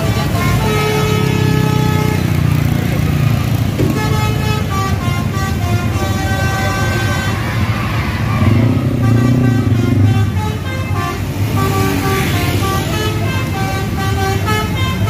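Bus 'telolet basuri' musical horn playing a melody of short stepped notes, one after another, over the rumble of bus engines.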